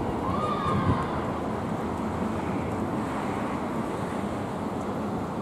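Steady rumble of city traffic, with wind on the microphone. A brief high whine rises and falls about half a second in.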